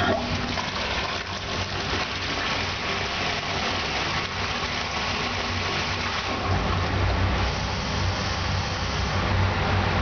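American Standard wall-hung toilet flushing: a steady rush of water pours into the bowl and drains away. A low rumble joins the rush about six and a half seconds in.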